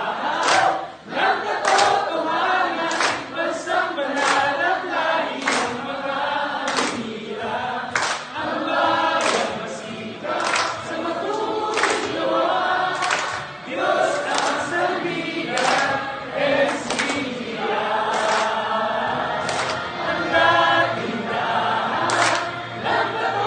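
A group of church members, men and women, singing together in a room, with sharp hand claps about once a second.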